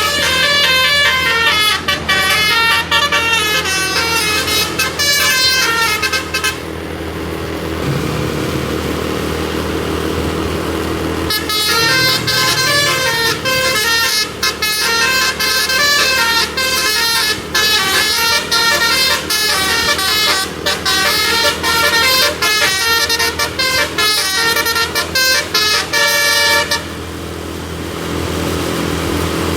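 Bus telolet horn (a Basuri multi-tone musical air horn) playing fast stepping melodies. It breaks off for about five seconds, leaving the bus running, then plays again for about fifteen seconds and stops near the end.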